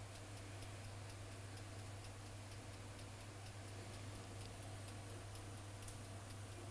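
Faint, steady pour of hot water from an electric kettle into an oven tray around crème brûlée ramekins, making a water bath for baking, with faint regular ticks over a low electrical hum.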